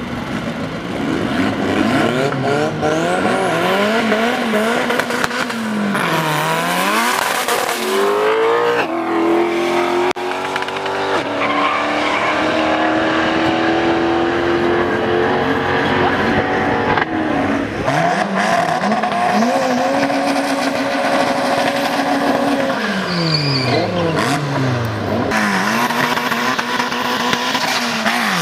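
Drag-racing car engines revving hard. The pitch climbs and drops again and again, and in the middle it holds a high note for several seconds. Tyres squeal during burnouts and launches.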